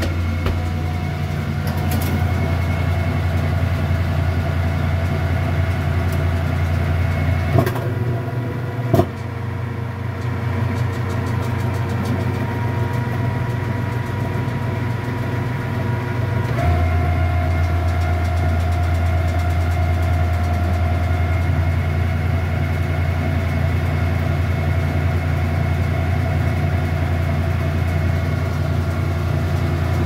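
Kenmore top-load washing machine running with a loud, steady low hum, its agitator turning. Two clicks come a second and a half apart, and the deepest part of the hum drops out. About 17 seconds in the hum comes back deeper. The owner has never heard this noise from the machine before and takes it for a sign that something is wrong.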